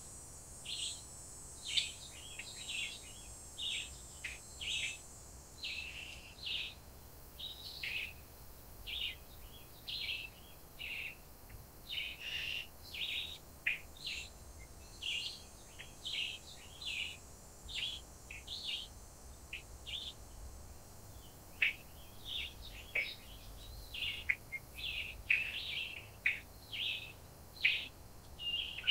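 Birds chirping: a steady run of short, high chirps, about one or two a second, with some overlapping calls.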